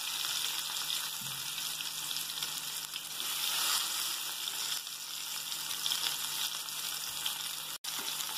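Sliced onions sizzling steadily in hot oil in a kadai, just after being added. The sound cuts out for an instant near the end.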